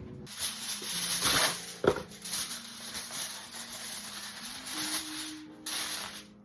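Aluminum foil rustling and crinkling as it is handled, with a sharp knock about two seconds in.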